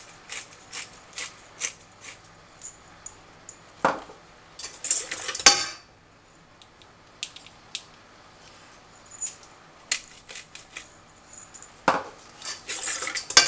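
Pepper mill grinding in runs of quick clicks over a stainless steel mixing bowl, with a few louder knocks and clatters against the bowl.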